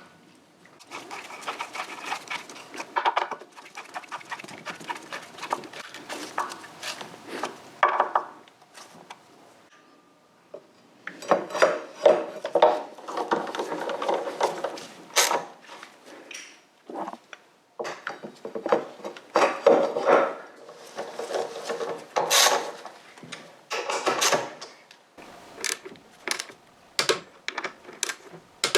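Workshop handling sounds: scraping and rubbing with many irregular clicks and knocks, growing into a quick run of sharp clicks near the end.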